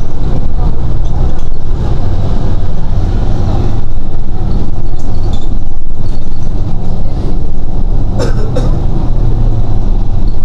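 Cabin noise inside a moving city bus: the engine running and road noise as a loud, steady low drone. About eight seconds in, two short sharp knocks.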